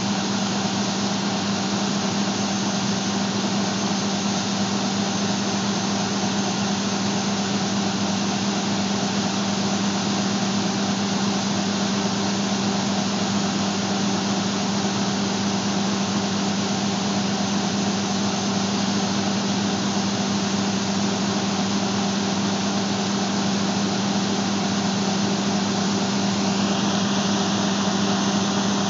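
John Deere combine running steadily during soybean harvest: a constant engine and machinery drone with a strong low hum, and a faint higher whine joining near the end.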